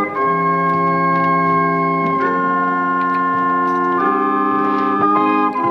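Small historic cabinet pipe organ playing held chords that change about two seconds in and again about four seconds in, then moving into quicker, shorter notes near the end.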